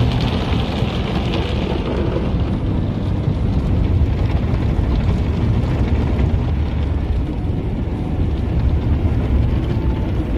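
Automatic car wash machinery and water spray heard from inside the car's cabin: a loud, steady noise with a low rumble underneath, and a hiss of spray on the glass that eases about two seconds in.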